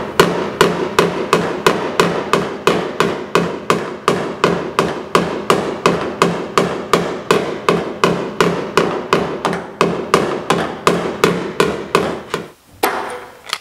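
Body hammer tapping lightly and steadily on the Mustang's sheet-metal body line, about three taps a second, each with a short metallic ring: knocking the high area down while a stud lever pulls the dented body line up on welded studs. The tapping stops about a second before the end.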